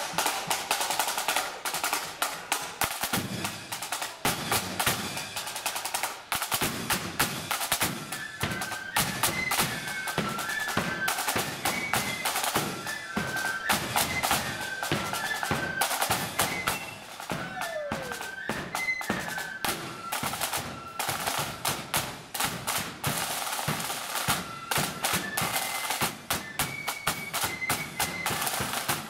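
Marching flute band playing as it parades: fast snare drum rolls and beats with a deep bass drum, and from about eight seconds in a high flute melody over the drums.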